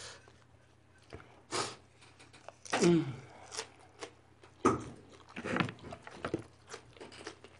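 A mouthful of leaf-wrapped food being chewed close to the microphone: crunching, wet mouth clicks and smacks, with a couple of short falling hums.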